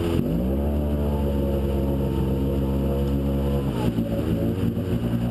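Polaris RZR side-by-side engine revving hard and held high for a few seconds, dropping briefly near four seconds in, then revving up again as the UTV sits stuck in a mud hole.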